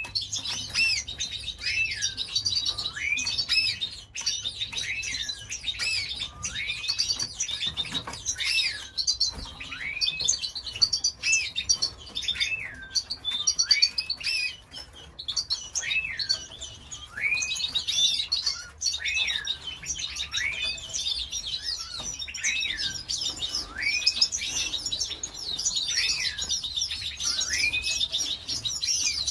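Canaries chirping and twittering continuously, with a short rising-then-falling call repeated about once a second.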